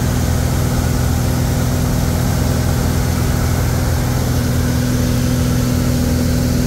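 Single-engine light aircraft's piston engine and propeller droning steadily, heard inside the cockpit in level flight. The pitch holds constant, a steady low hum.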